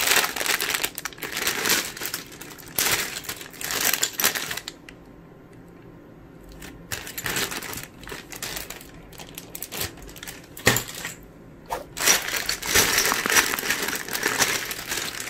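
Clear plastic zip-lock bags of small GoPro mounts and parts being handled and crinkled, in uneven bursts. The crinkling eases off for a couple of seconds a little under halfway through, then picks up again, loudest near the end.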